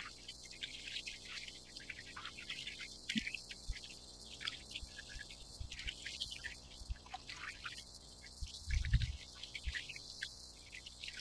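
Small waves lapping and splashing against a plastic sit-on-top kayak's hull in irregular little bursts, with a low thump about nine seconds in.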